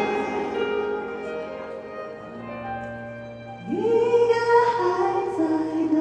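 Live pop ballad with piano accompaniment: a held sung note dies away over a low sustained note. About four seconds in, a woman's voice slides up into a long held note, then steps down near the end.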